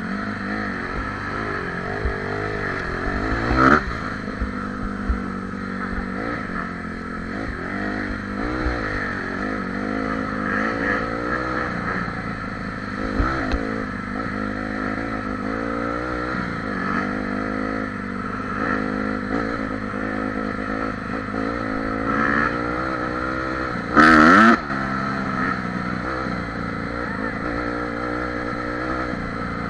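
Dirt bike engine running under way, its pitch rising and falling as the throttle is worked over rough trail. A short, loud burst of noise cuts in late on.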